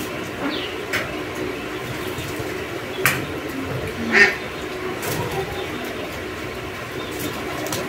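A few short animal calls, the loudest two about three and four seconds in, over steady background noise.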